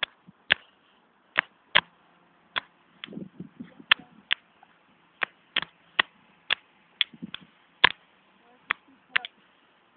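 Irregular sharp knocks, about two a second, with uneven gaps: the phone being jostled and bumped as its holder walks across the grass while filming.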